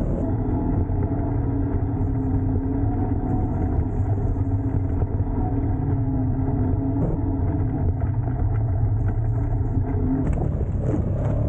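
A motor vehicle's engine running steadily, a continuous low rumble whose pitch shifts slightly now and then.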